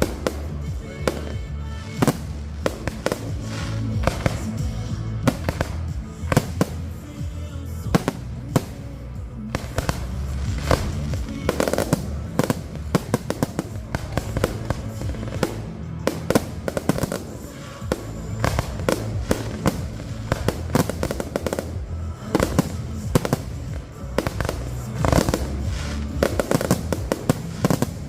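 Fireworks finale: a dense, continuous run of aerial shell bangs and crackling, over music playing throughout.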